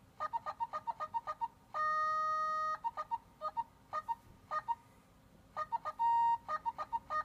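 Pocket Miku (NSX-39) singing synthesizer playing mikutter's 'favorited' notification: quick runs of short synthesized sung notes, with a held note about two seconds in and another brief held note near the end.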